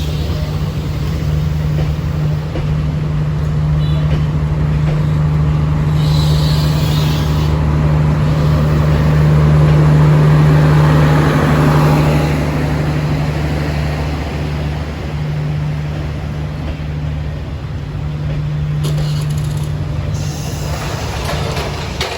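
D19E diesel-electric locomotive's diesel engine running at a steady low hum, swelling louder about ten seconds in and then easing back.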